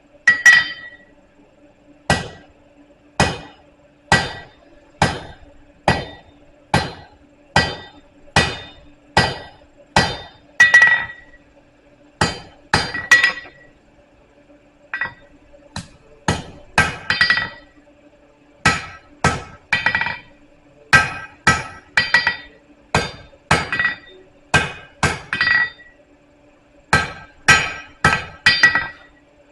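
Blacksmith's hammer striking hot steel on an anvil to forge a taper: a steady run of blows about one a second, some in quick pairs, each with a short metallic ring.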